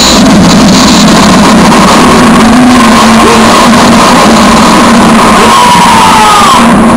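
Loud, heavily distorted soundtrack played through stage loudspeakers for a skit's fight scene: a steady drone with a short falling whistle about six seconds in.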